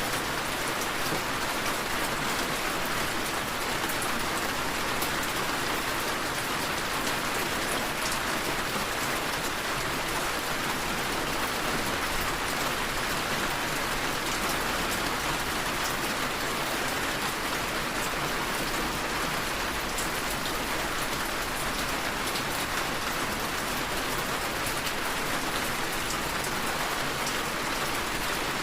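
Steady rain falling, an even hiss with faint scattered drop ticks, no thunder.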